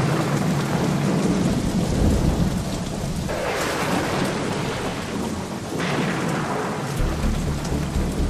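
Heavy rain with rumbling thunder, swelling a couple of times. Near the end a low, regular pulsing beat comes in underneath.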